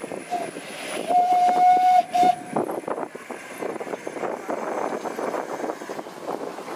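Narrow-gauge steam train's whistle: a brief toot, a long blast and another brief toot, followed by the noise of the train on the move, a dense rattle.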